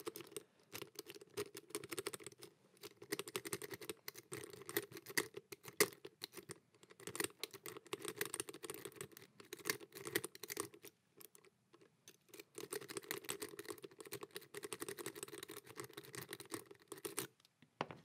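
Steel lock pick scratching and clicking against the pin stack inside a brass Sargent padlock's cylinder, with a tension wrench in the keyway. It makes a quick, irregular clatter of small clicks that stops shortly before the end.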